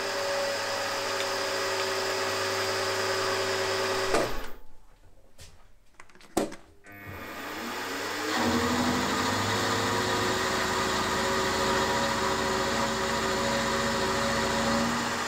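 Milling machine spindle running with an end mill cutting mild steel bar to length, a steady machining hum. About four seconds in the sound drops away with a sharp click, then the spindle winds back up in pitch and the cutting carries on steadily.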